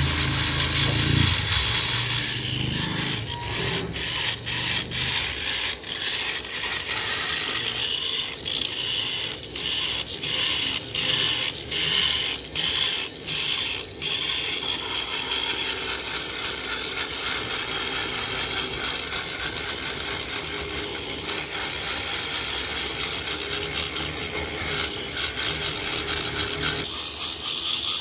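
Metal being worked inside the ports of a Yamaha RX-King two-stroke cylinder during porting: a steady scraping noise. For the first half it breaks into short regular strokes about twice a second. A low hum fades out in the first second or two.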